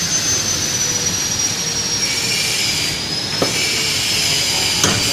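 Steady machine noise: a continuous rushing hiss with a thin high whine that drifts slightly in pitch, and two short knocks about three and a half and five seconds in.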